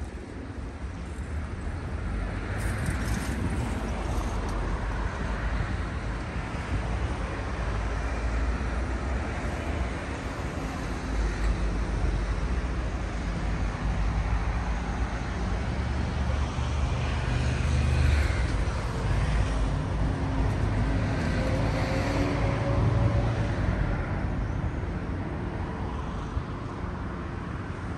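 Road traffic on a town street: cars passing with a low rumble of engines and tyres that swells and fades several times.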